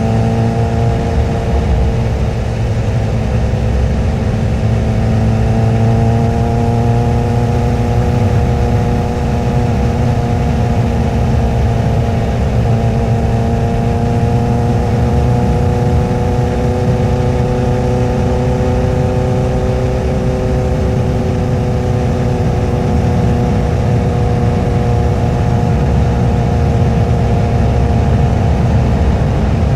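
Honda CBR1000RR's 999cc inline-four engine running at a steady pitch that drifts slightly up and down, with a low rumble underneath and no sharp revs.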